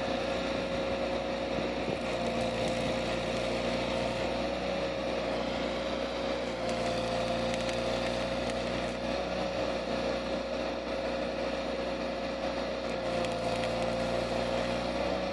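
Electric arc welding on a quad's handlebar mount: a continuous crackling hiss from the arc, over a steady engine hum.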